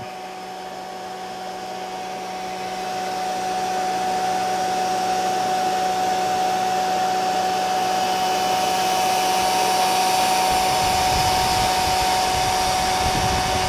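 Electric fan running with a steady whirring hum, growing louder over the first few seconds and then holding steady.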